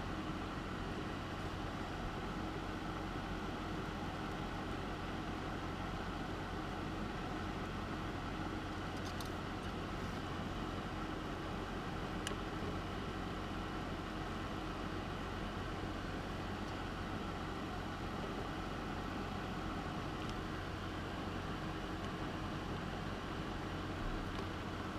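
Soldering fume extractor fan running steadily, a whooshing airflow over a low hum, with a few faint clicks about nine to twelve seconds in.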